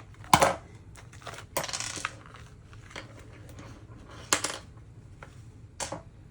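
Small plastic diamond-painting tools and a plastic tray being handled and set down: a few sharp clacks, the loudest right at the start, and a short rustle of packaging.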